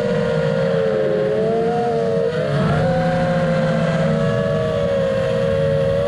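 FPV racing quadcopter's brushless motors and propellers giving a steady, multi-toned whine while cruising at partial throttle. The motors' tones drift slightly in pitch and cross each other about two seconds in, as the throttle is eased.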